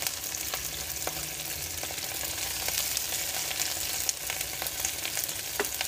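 Vegetables sizzling in hot oil in a stainless steel frying pan as shredded carrots and greens are tipped in from a plate, with a few light clicks.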